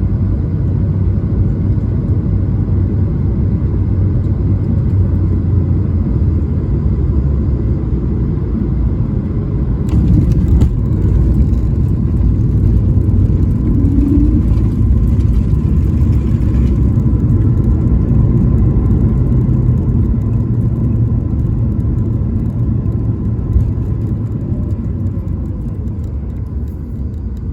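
Cabin noise aboard an Airbus A220-300 taxiing after landing: a steady low rumble from its Pratt & Whitney PW1500G geared turbofans and the rolling airframe. A broader hiss joins about ten seconds in and fades out around seventeen seconds.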